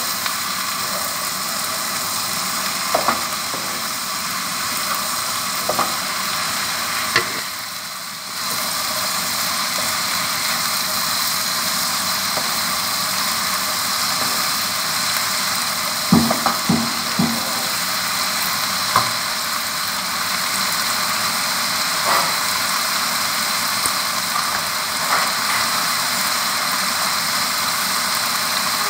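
Shrimp, potato and onion stalks sizzling steadily as they stir-fry in a wok. A wooden spatula knocks and scrapes against the pan now and then, most in a cluster about 16 seconds in.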